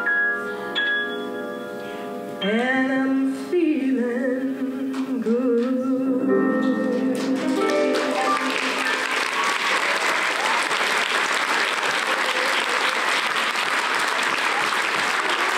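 A woman singing the closing phrase of a song to piano accompaniment, ending on a held note about halfway through; the audience then breaks into steady applause.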